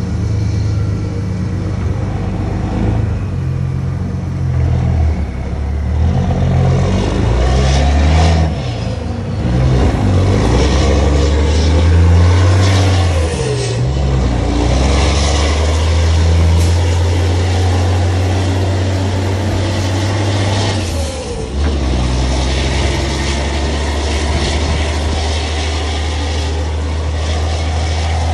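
Straight-piped Caterpillar C15 diesel in a semi truck running loud on the road. The low engine note steps up and down through the first half, drops briefly twice (about 14 and 21 seconds in) and then holds steady.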